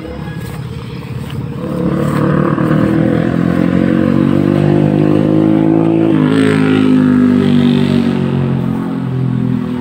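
Motorcycle engine accelerating: its pitch climbs, drops sharply about six seconds in as a gear is shifted, then climbs again.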